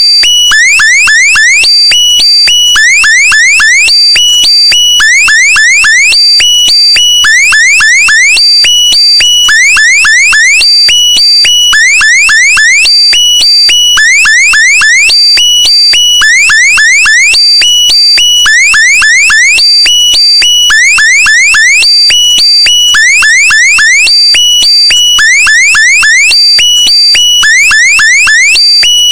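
Electronic alarm-like sound effect looped over and over: quick bursts of several rising chirps over a steady high tone, repeating about once a second.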